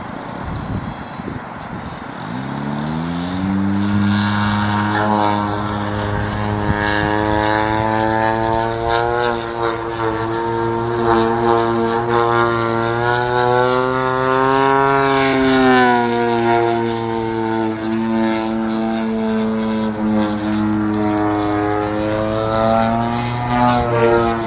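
Extreme Flight Slick 580 radio-controlled aerobatic airplane's propeller and gas engine in flight: a steady engine drone that rises in pitch a couple of seconds in, then holds, swelling and dipping slightly in pitch about two-thirds through and again near the end.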